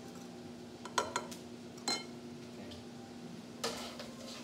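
Metal wire whisk clinking against a ceramic bowl while stirring a soy sauce mixture: a few separate sharp clinks, about a second in, just before two seconds and near the end, over a steady low hum.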